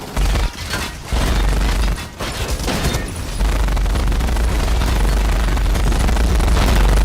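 Heavy, continuous gunfire with deep booms, a dense battle-scene barrage of machine-gun fire and blasts.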